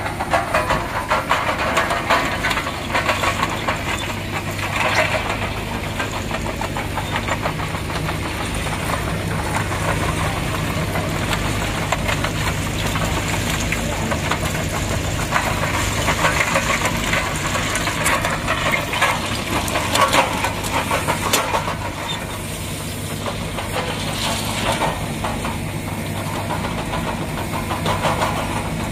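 An excavator's diesel engine running steadily under load while its chain-type ballast undercutter cutter chain drags through railway ballast, with a continuous clatter and rattle of stones.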